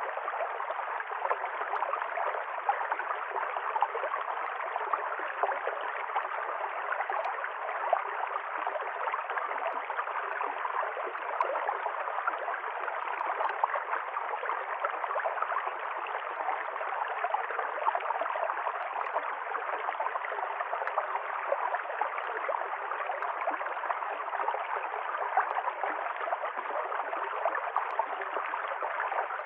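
River stream flowing steadily, an even rush of water with fine gurgling.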